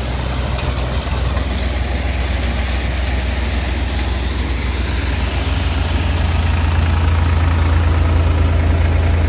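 New Holland 3600 tractor's diesel engine running steadily under load, driving a Shaktiman multicrop thresher through the PTO shaft while it threshes castor, with the thresher's rattle mixed in. The engine hum grows a little louder near the end.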